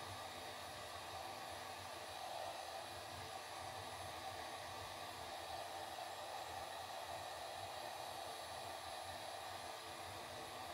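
Heat gun running with a steady airy rush, thawing a big chunk of frost in a refrigerator freezer.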